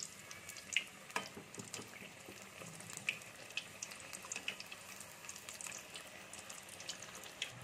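Hot oil sizzling and crackling in a kadai as a dough sweet deep-fries, with scattered sharper clicks. Hot oil is ladled over the sweet from a slotted spoon and trickles back into the pan, which makes it puff up.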